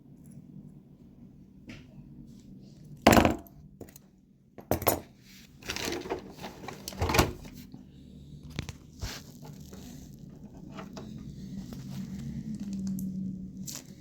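Clinks, clicks and knocks of small metal body clips and the hard plastic RC car body being handled and fitted, a few sharp knocks with the loudest about three seconds in, then lighter ticks.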